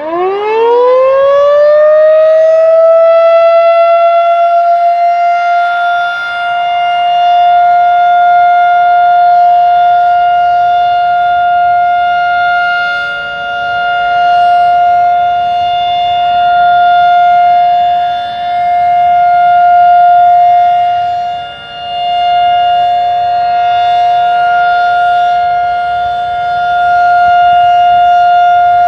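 Outdoor tornado warning siren winding up: its wail climbs in pitch over about two seconds, then holds one steady tone, its loudness swelling and dipping every few seconds. It is sounding for the routine weekly test.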